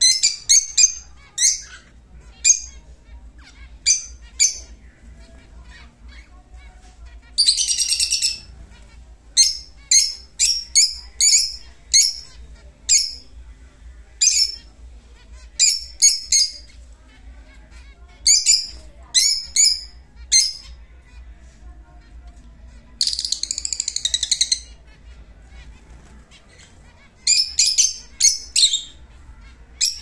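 Lutino peach-faced lovebirds calling: high-pitched chirps repeated in quick runs, with two longer chattering calls of about a second or more, about a quarter of the way in and again about three-quarters of the way in.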